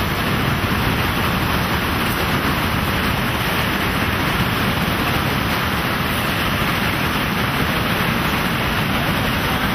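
Fast-flowing river rushing past, a steady, dense noise of churning water.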